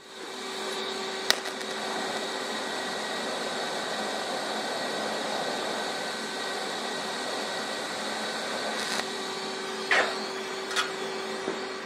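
TIG welding arc on steel tubing, a steady hiss with a faint steady tone, tack-welding a bearing onto the flap torque tube. There is one sharp click about a second in; the arc cuts off about ten seconds in, followed by a couple of light knocks.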